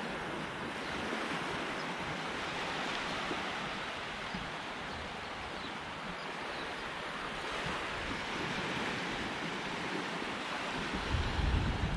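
Small waves washing up and lapping on a sandy beach, a steady hiss of gentle surf. About eleven seconds in, a low rumble of wind on the microphone comes in.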